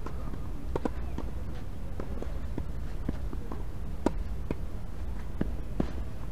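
Scattered light taps and knocks of play on a tennis court, irregular rather than a steady rally rhythm, with the sharpest one about four seconds in. A steady low rumble runs beneath.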